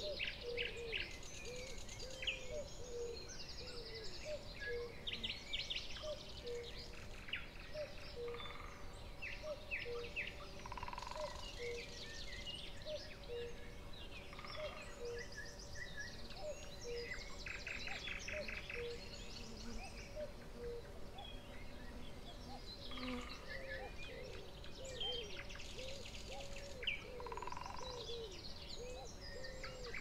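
Birdsong from several birds: many quick high chirps and trills, over a low call repeated about once a second that turns into longer swooping calls in the last third.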